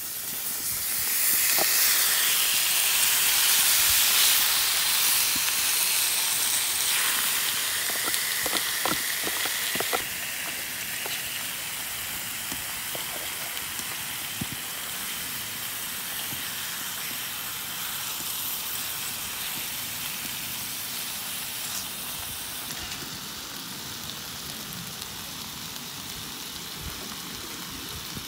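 Marinated pork belly and squid in red chili sauce sizzling loudly as they hit a hot steel griddle plate, with tongs clicking on the plate. The sizzle is loudest for the first several seconds, then drops to a steadier, quieter hiss about ten seconds in.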